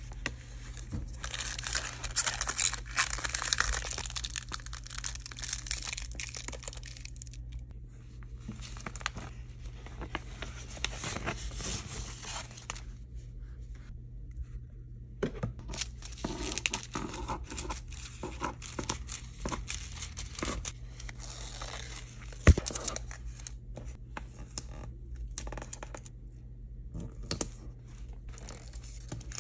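Thin metallic foil transfer sheets and plastic film being handled: crinkling and tearing in several stretches with short pauses between, and one sharp knock about 22 seconds in.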